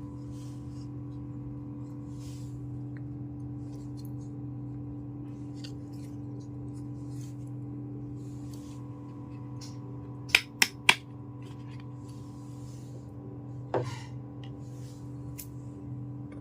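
Small toy kitchen pieces being handled, with faint rustles and light ticks. Three sharp clicks come in quick succession about two-thirds of the way through, and one more follows a few seconds later. A steady electrical hum runs underneath.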